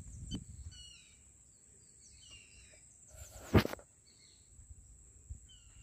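Outdoor garden ambience with birds chirping: short high calls scattered through the quiet, over a steady thin high tone. One loud thump about three and a half seconds in.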